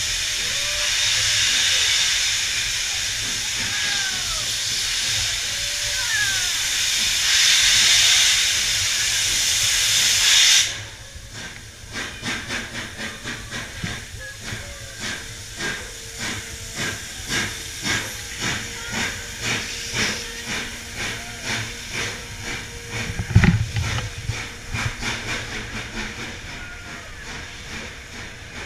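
Steam locomotive blowing off a loud, steady hiss of steam that cuts off suddenly after about ten seconds. The locomotive then pulls away, its exhaust chuffing in an even beat of about two a second, with one loud low thump near the end.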